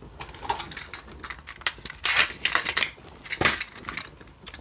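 A MiniDisc and a Sony MZ-N710 MiniDisc Walkman being handled: a run of small hard-plastic clicks and crackles, busiest about two to three seconds in. A single sharp click comes about three and a half seconds in.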